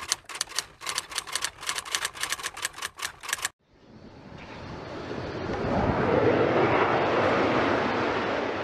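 Quick keyboard-typing clicks, about six a second, for the first three and a half seconds; then, after a short gap, the engine noise of a passing jet aircraft swells up and holds loud.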